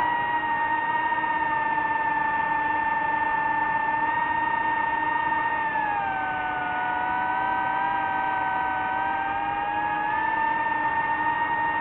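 DJI FPV drone's motors and propellers whining steadily. The pitch drops about halfway through and climbs back near the end as the throttle is eased off and brought up again.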